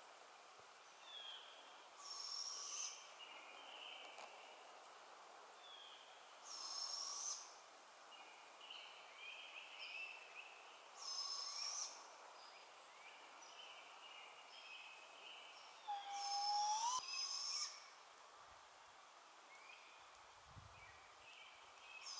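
Songbirds singing: one high song phrase repeats about every four to five seconds, with softer chirps between, over a faint steady hiss. One lower, rising whistled note comes about sixteen seconds in.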